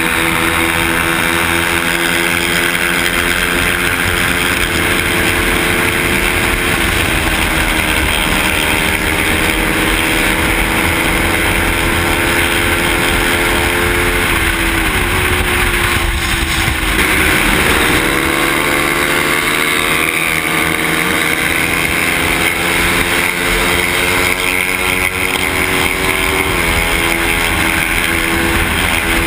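Motorcycle engine heard from the rider's own bike while cruising, with wind and road noise on the microphone. The engine note drops and climbs again several times, around a quarter of the way in, about halfway through and near the end, as the throttle or gear changes.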